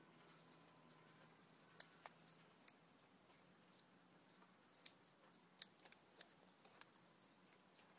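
Bonsai training wire being bent and wrapped around branches by hand: about ten scattered sharp clicks and ticks, bunched together around two seconds in and again around six seconds in, over a faint background.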